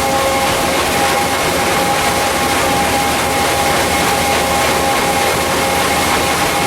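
Paddle excursion boat's engine running steadily: a loud, even drone with a constant whine held on a few steady pitches.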